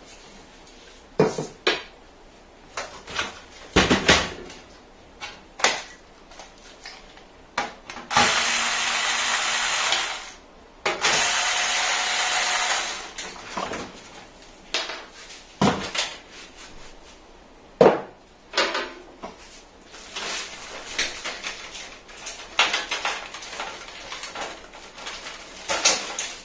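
Handling of a computer case: scattered clicks and knocks of panels and parts being moved. About a third of the way through and again near halfway there are two steady, loud runs of whirring noise, each about two seconds long.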